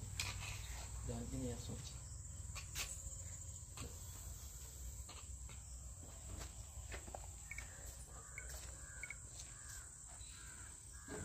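Steady high-pitched insect chirring, with faint voices about a second in and a few soft clicks.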